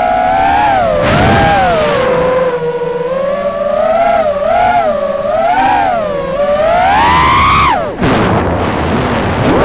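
Brushless motors and propellers of a 6-inch Armattan Rooster FPV quadcopter whining in flight, the pitch rising and falling with the throttle. Near the end the whine drops sharply, as when the throttle is chopped for a dive, leaving a rush of air, and it picks up again at the very end.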